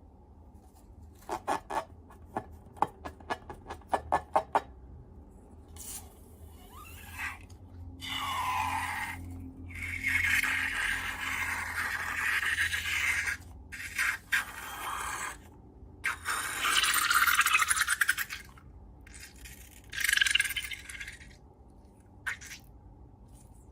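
Hand-handling sounds of slime and long balloons: a quick run of sharp clicks, then several scraping, rubbing bursts of a second or more each.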